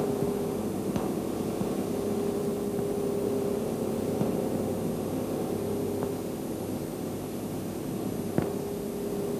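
Steady hum of a row of Austin Seven four-cylinder side-valve engines running together on test, under the hiss of an old film soundtrack, with a sharp click about a second in and a louder one near the end.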